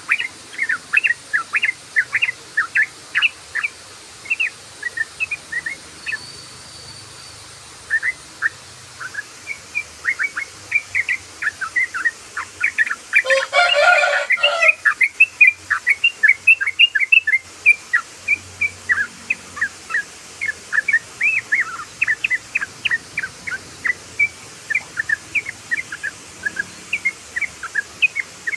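Yellow-vented bulbul singing a long, rapid song of short bubbly notes, several a second, without a break. About halfway through there is a dense, louder flurry of notes.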